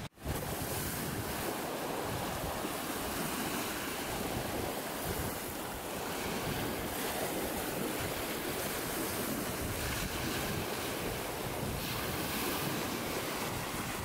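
Sea waves washing steadily, with wind noise on the microphone.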